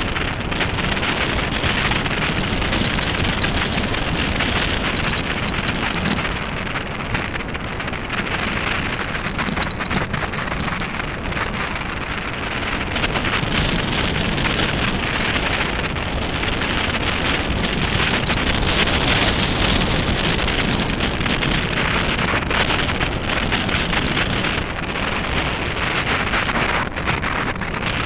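Mountain bike tyres rolling over a loose gravel dirt track, a dense steady crackle with small rattles, under wind buffeting the microphone.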